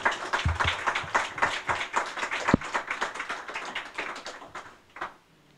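Small audience applauding with separate claps, thinning out and dying away about four and a half seconds in.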